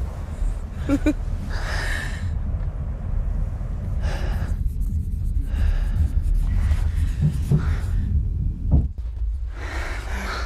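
A person breathing hard in gasps and pants, each breath a rush of a second or two, over a steady low rumble.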